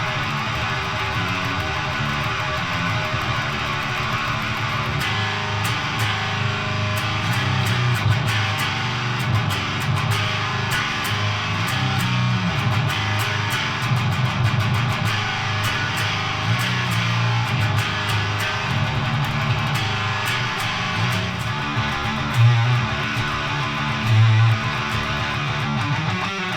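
Electric guitar playing heavy metal riffs through a Siren Pedals Eligos, a clone of the Boss HM-2 heavy metal distortion, into a tube amp and 4x12 cabinet: the thick, buzzing Swedish death metal 'chainsaw' tone. The playing is fast and picked, with a few heavier low chugs near the end.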